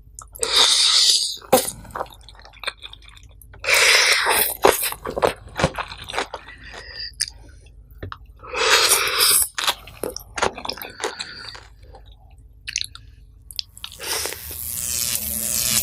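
Close-miked eating of nasi pecel: chewing with many small wet clicks and three loud crunchy bites. Near the end a steady rush of liquid starts and grows louder.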